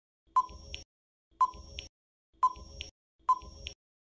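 Countdown timer sound effect for a quiz answer: a short beep-tick about once a second, four times.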